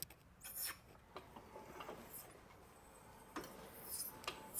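Hand-cranked tube roller being turned by its handwheel as it bends a tube into a hoop: faint rubbing and scattered clicks, with a few louder ticks about half a second in and near the end.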